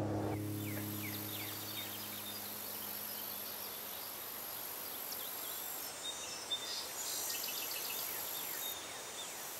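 Rural outdoor ambience: a steady high insect drone with many short, quick bird chirps scattered through it.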